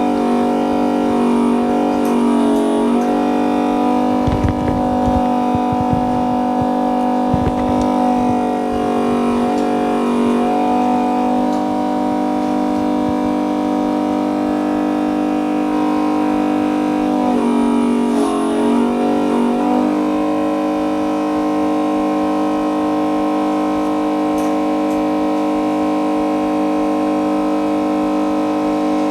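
Background music of sustained chords that change every several seconds, with a few faint low knocks a few seconds in.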